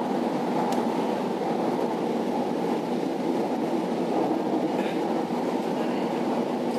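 Steady running noise inside a moving metro train carriage, an even rumble and rush from wheels, rails and air that holds at one level without distinct clacks or squeals.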